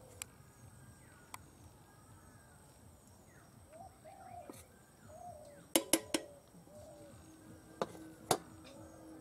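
Metal spoon clinking and scraping against an aluminium rice pot and a steel plate while boiled rice is served out: a few sharp clinks, the loudest three close together about six seconds in and two more near the end. Birds call faintly in the background.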